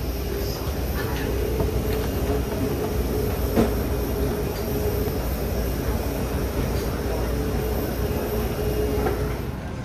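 Steady machinery hum and rumble of an airliner parked at the gate, with a steady mid-pitched tone and a faint high whine running through it. There is a single sharp knock about three and a half seconds in, and the sound drops off just before the end.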